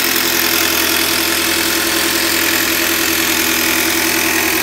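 Jigsaw fitted with a fine metal-cutting blade, running steadily as it cuts a curve through plywood.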